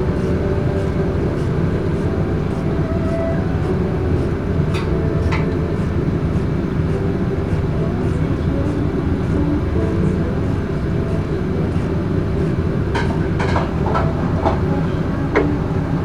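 Steady loud low rumble of commercial kitchen machinery, with a few sharp metallic clinks about five seconds in and a quick run of clinks and taps near the end.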